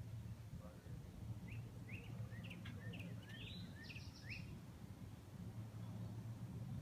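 A songbird singing a short phrase of rising chirps, an arched whistle and a quick trill, about a second and a half in, over a low, steady rumble.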